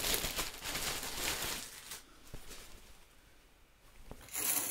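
Packaging and a cotton t-shirt rustling as they are handled, fading to near quiet about two seconds in, then a brief rustle near the end as the shirt is opened out.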